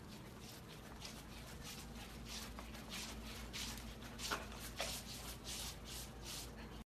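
Soft repeated swishing and rubbing on a hardwood floor, about one or two strokes a second, as a corgi puppy lying flat slides along the boards with a flat floor mop. The sound cuts off abruptly near the end.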